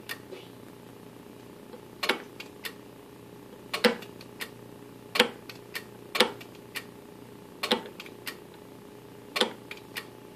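Input selector of a Denon PMA-S1 integrated amplifier being turned through its positions: sharp clicks, some in quick pairs, about one to one and a half seconds apart. A steady low hum runs underneath.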